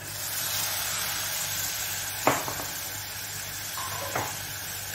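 Raw minced mutton sizzling in hot oil in a pan, the hiss jumping up as the mince goes in and then staying steady. Two sharp knocks, about two and four seconds in, from the spatula against the pan.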